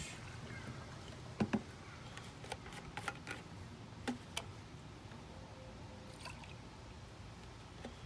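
Last of a pour of bleach trickling through a plastic funnel into an RV fresh water tank fill, then scattered light clicks and knocks as a glass measuring cup is set down and a plastic bleach jug is handled, over a low steady hum.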